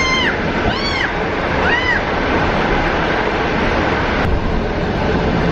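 Suburban electric train running, a steady rumble of the moving carriage heard from inside. Three short high squeals that rise and fall come in the first two seconds, about a second apart.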